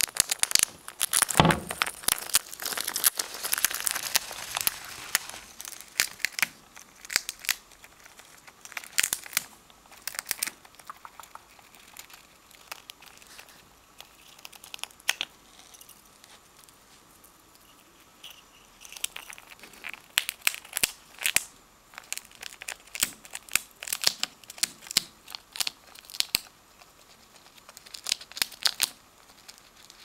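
Plastic bag crinkling and rustling, densest over the first five seconds and then in shorter spells of crackles, the sound that calls the pet chipmunk to its nuts. A low bump on the camera about a second and a half in.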